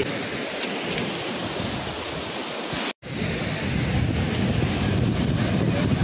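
Steady rushing roar of Dudhsagar Falls in monsoon flow, with wind on the microphone. It cuts out for an instant about halfway, then returns with more low rumble.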